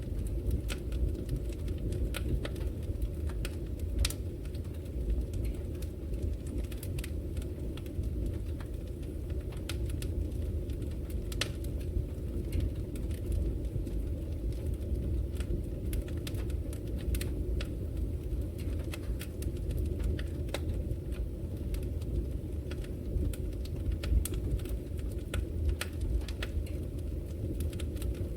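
Wood fire burning in a fireplace: a steady low rumble of flames with irregular sharp crackles and pops from the burning logs, a few louder pops scattered through.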